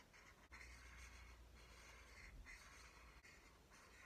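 Faint scratching of a marker drawn across sketchbook paper in a series of short strokes, with brief pauses between them, as a drawing is coloured in.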